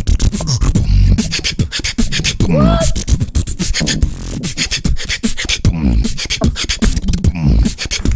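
Human beatboxing into a close microphone: a fast, groovy beat of mouth-made kicks, snares and hi-hat clicks with a deep low end. A few sliding vocal tones come in about two and a half seconds in.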